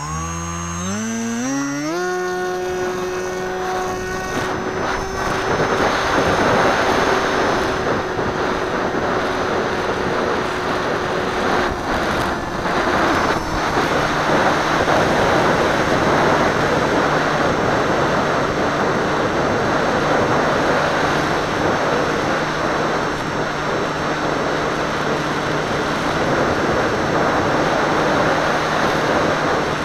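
Seawind model seaplane's motor and propeller, heard from a camera on the plane: the motor spools up with a rising whine over the first two seconds for the takeoff off the water. It then holds a steady drone under a loud rush of water and wind. The pitch steps down slightly about thirteen seconds in, once the plane is flying.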